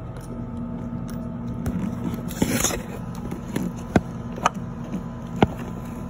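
Ratchet and oil pressure switch socket working the switch loose: a short scrape a little past two seconds in, then a few separate sharp metallic clicks.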